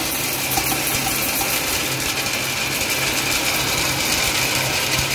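Drain-cleaning machine running steadily, its coiled steel spring cable spinning and rattling down a squat toilet's drain to clear a blockage, with a steady high whine over the motor's hum.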